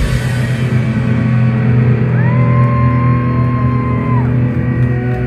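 Live instrumental post-rock band with electric guitars ringing out in sustained low held chords as the drums drop away at the start. About two seconds in, a long high tone slides up, holds for about two seconds, and falls away.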